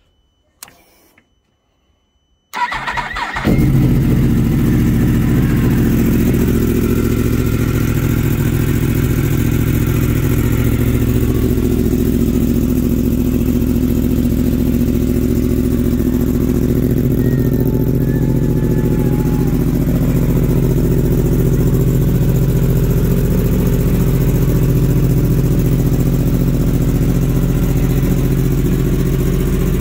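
2015 Yamaha YZF-R1M's crossplane inline-four started on the button: a brief crank about two and a half seconds in, then it catches and runs at a steady idle.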